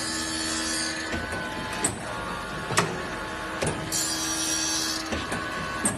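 Automatic circular saw blade sharpening machine running, with a sharp click about once a second as it indexes the blade tooth by tooth. Two bursts of high hiss come at the start and about four seconds in as the grinding wheel works the teeth.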